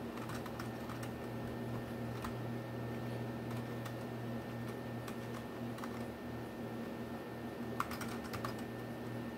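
Computer keyboard keystrokes, typed in short, sparse runs with a quicker cluster near the end, over a steady low hum.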